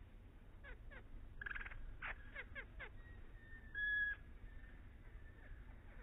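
Faint hummingbird calls: a quick run of chirps sliding down in pitch and buzzy chatter in the first three seconds, then a short, steady, high tone about four seconds in.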